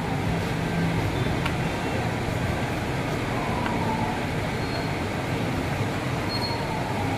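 Steady low machine hum over even background noise, with a faint falling tone drifting by twice.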